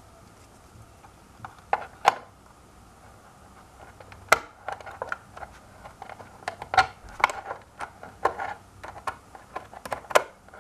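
Small wrench turning the nut on a push-button power switch mounted through a plastic hoverboard shell: irregular light metallic clicks and taps, a few at first, then coming thick and fast from about five seconds in.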